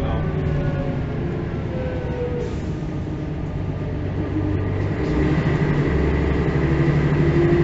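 Mercedes-Benz O405 city bus from 1985, heard from on board: the engine's pitch sinks over the first couple of seconds. About five seconds in it grows louder and its pitch climbs as the bus pulls harder, with a thin high whine joining in.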